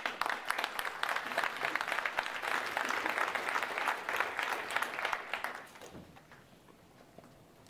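Audience applauding at the close of a talk, dying away about six seconds in.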